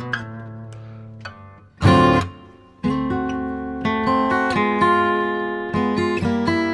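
Background music on acoustic guitar: picked notes fade out, a loud strummed chord comes about two seconds in, then ringing chords carry on.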